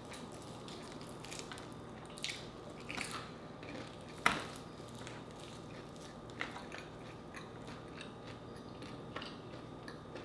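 Close-up eating sounds of crispy fried chicken: the breading crackling and crunching as it is bitten, chewed and torn apart by hand, in scattered short crunches with the loudest a little over four seconds in.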